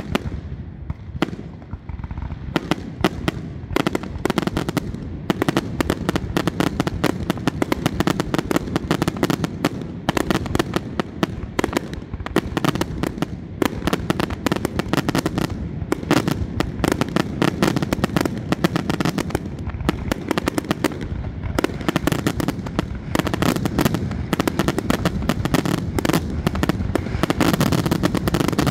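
Fireworks display: aerial shells bursting one after another in a dense run of bangs, which thickens into an almost continuous barrage near the end.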